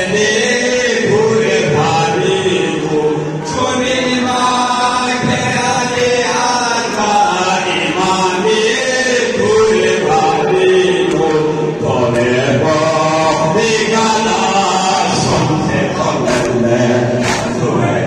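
Devotional vocal chanting: voices singing a slow melody together, with long notes that glide up and down.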